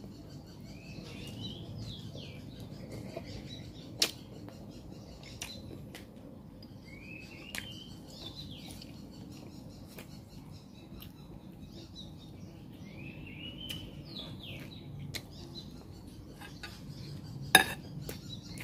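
Someone eating: chewing, with a metal spoon clinking against a glass bowl twice, lightly about four seconds in and loudest near the end. A bird's short rising call repeats about every six seconds in the background.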